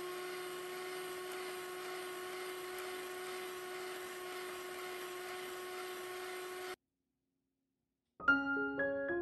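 Electric hand mixer running at one steady speed, its motor whining at a constant pitch as the beaters whip butter and egg in a glass bowl. It cuts off abruptly about seven seconds in, and piano music begins near the end.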